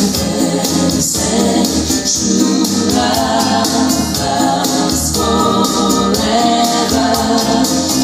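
Music with group singing and a steady beat, played back through a pair of home-built loudspeakers and heard in the room.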